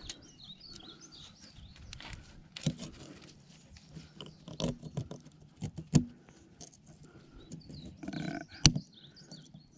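Irregular sharp metallic clicks and clinks of a steel snap ring being worked into its groove on a hydraulic cylinder part, the loudest clicks about six seconds in and near the end.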